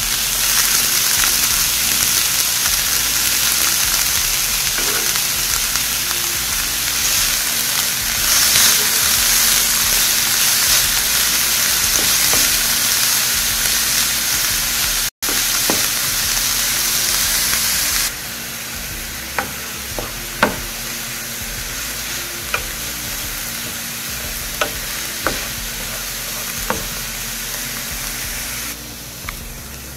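Chopped onions sizzling in hot oil in a nonstick pan while being stirred with a wooden spatula. After about 18 seconds the sizzle gets quieter and a series of sharp clicks from the spatula against the pan stands out.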